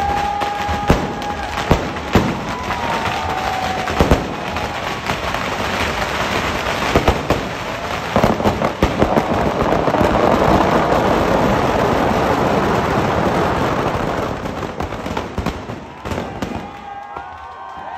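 Firecrackers packed into a burning Ravana effigy going off: a run of sharp bangs and crackles that builds into a dense, continuous crackle about ten seconds in, then thins out near the end.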